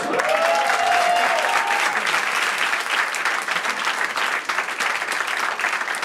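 Audience applauding steadily, with a single held vocal cry over the first couple of seconds.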